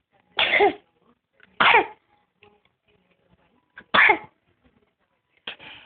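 Repeated sneezing: three short, loud sneezes about one and a half to two seconds apart, each with a falling pitch, and a softer fourth one near the end.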